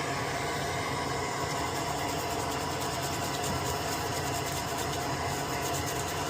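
Steady whir of a fan or small motor running, with faint light ticking in the middle.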